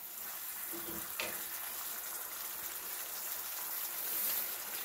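Ground-beef sloppy joe sauce sizzling steadily as it simmers in a cast-iron skillet, stirred with a wooden spoon, with one knock a little over a second in.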